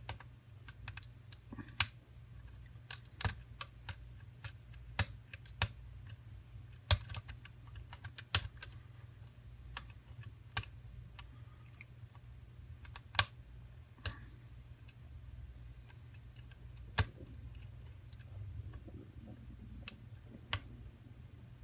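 Irregular sharp clicks of a hook pick and tension wrench working the pin stack inside a Tobias & Julian Piston Stroke pin-tumbler lock while it is being single-pin picked, a few clicks louder than the rest. A faint steady low hum runs underneath.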